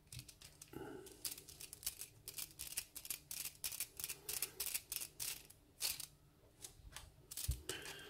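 Light, irregular metal clicks and scrapes as a small precision screwdriver turns in the screw at the back of a mortise lock cylinder, with a soft knock near the end.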